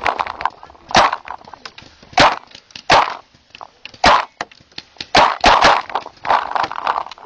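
Paintball markers firing during a game: a string of sharp, irregular pops. A loud, close crack comes roughly once a second, with fainter, more distant shots in between.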